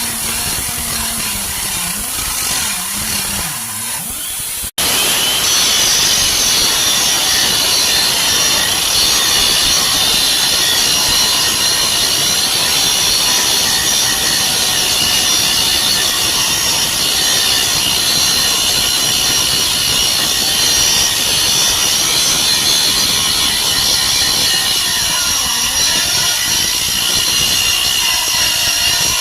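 Pneumatic air grinder running steadily with a high-pitched whine. The sound cuts out for an instant about five seconds in, then the grinder runs on, slightly louder.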